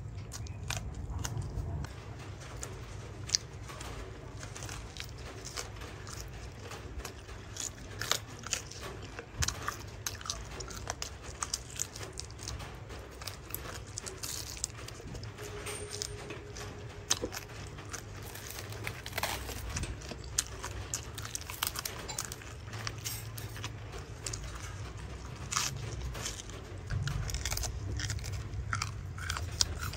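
Irregular crisp clicks and crunches, many short sharp taps scattered throughout, over a steady low rumble.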